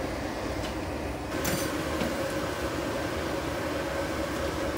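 Steady rumble and hum of a busy stall kitchen, the kind of noise that gas burners, pots of hot water and fans make. A couple of light metallic clinks of steel utensils come about a second and a half and two seconds in.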